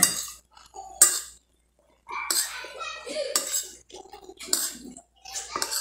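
Metal spoon clinking and scraping against a glass bowl, with a sharp clink at the start and another about a second in, followed by chewing and more spoon scrapes.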